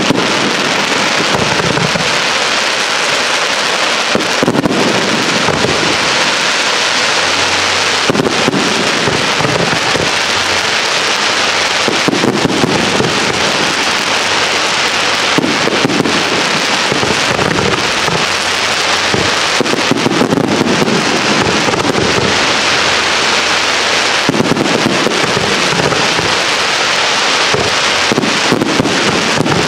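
Fireworks display in a continuous barrage: many launches and bursts overlapping with dense crackling, with no pause anywhere.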